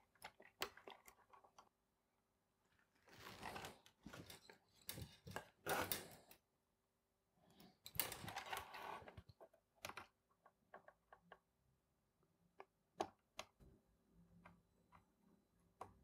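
Near silence: faint rustles in the first half, then scattered small clicks and taps, from hands handling wires and a soldering iron at a small circuit board, over a faint steady hum.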